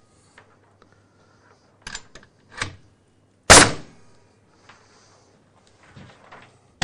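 Bostitch F28WW pneumatic framing nailer firing a nail into softwood timber: one loud sharp bang about halfway through, with a few fainter knocks of the tool being handled before it and near the end.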